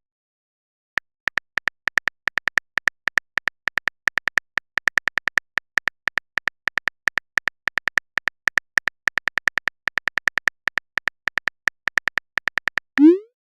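Chat-app typing sound effect: a quick, even run of light synthetic keyboard clicks, about five a second, starting about a second in. It ends with a short rising swoop, the app's message-sent sound.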